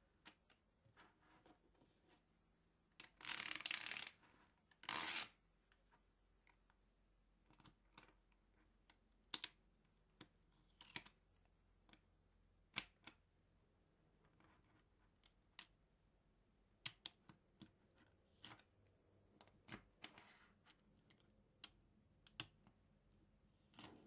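Small magnet balls clicking and snapping together as rows are pushed into place, in scattered sharp clicks, with two longer rustling noises about three and five seconds in.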